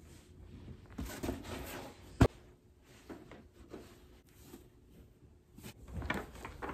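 Red fabric ornament storage boxes and their cardboard dividers being handled and fitted together: rustling and scraping of fabric and card, with one sharp knock about two seconds in.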